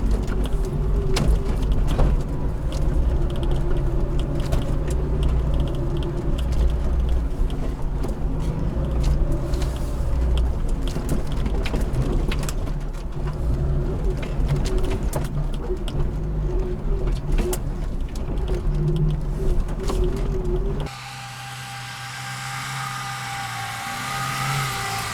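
Lada Niva engine running as the car drives off-road, with frequent sharp clicks and knocks over the rumble. About 21 seconds in, the sound cuts off suddenly and gives way to a quieter sound with steady tones.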